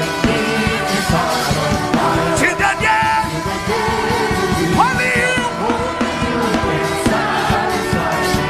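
Live gospel worship music: a band playing steadily with drums, under voices singing without clear words.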